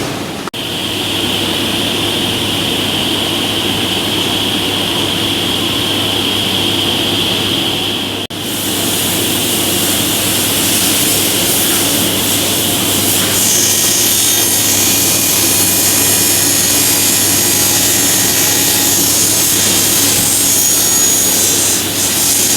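Industrial two-blade sliding table panel saw running, a steady loud machine noise with a low hum and a high blade whine. The sound breaks off sharply twice, about half a second in and about eight seconds in.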